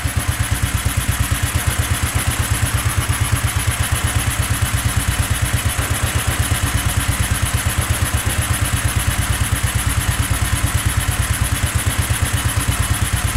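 Go-kart engine idling with a steady, rapid firing beat, just after a hard cold start in near-freezing air.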